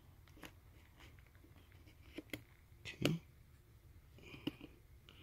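A pry tool working along the edge of a laptop keyboard, with about five faint, sharp clicks as the keyboard's retaining latches snap free.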